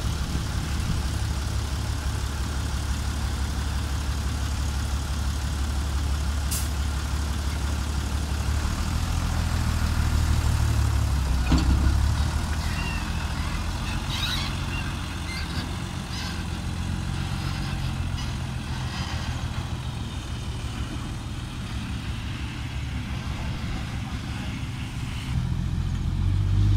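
Isuzu 10-wheel dump truck's diesel engine running with a steady low drone, strong through the first twelve seconds, then dropping back to a quieter idle. Near the end the engine rises again as the truck pulls away.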